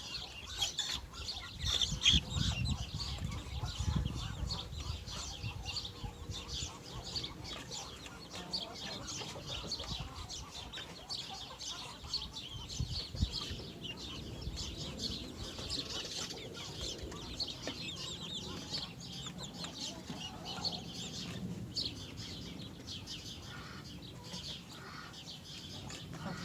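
Backyard chickens clucking and chirping continually, with a brief flutter of wings.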